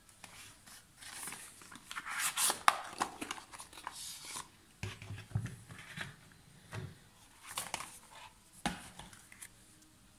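Cardboard box and plastic packaging rustling and knocking as they are handled, while a non-contact thermometer in a clear plastic holder is taken out of its box. Several sharp clicks and a few dull knocks come and go irregularly.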